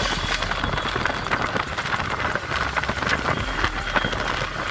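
Riding noise from a motorcycle on the move: a steady rush of wind on the bike-mounted microphone with many crackles, over a low steady drone from the bike's engine.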